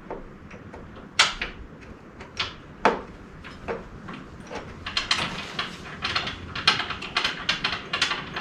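Metal knocks and scraping as an aftermarket rock slider is fitted against a side-by-side's tube frame and its bolts are worked in: a few separate clanks, then from about halfway a quick run of clicks and scrapes, several a second.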